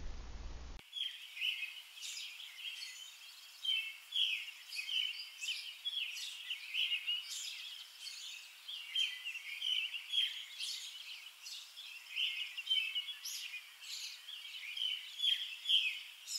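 Birds chirping, many short overlapping calls, starting about a second in and going on without a break.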